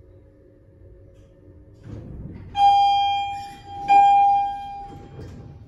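Hydraulic elevator's dry-type pump motor hums steadily and then cuts off as the car stops at the floor. The arrival chime then rings twice, each ding fading out, while the doors slide open.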